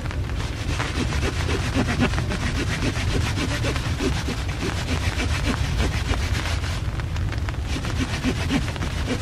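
A knife shaving a wooden stick in quick repeated scraping strokes, a few a second, over a steady low rumble of wind on the microphone.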